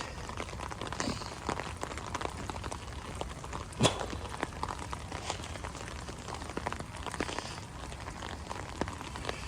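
Steady rain falling, with many small drops ticking close by and one louder drop hit about four seconds in.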